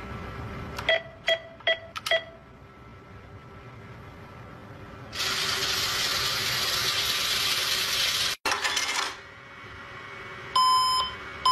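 Cash-machine (ATM) sound effects. Four short keypad beeps come about a second in, then about three seconds of steady cash-dispensing whirr, then a longer beep near the end.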